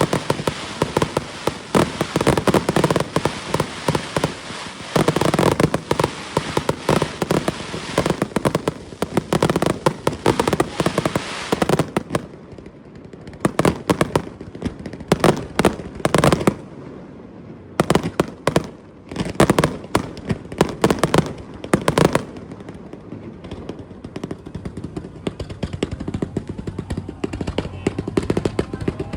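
Fireworks display: a dense, rapid string of bangs and crackles for the first twelve seconds or so, then single loud bursts about a second apart, dying down to quieter sounds after about twenty-two seconds.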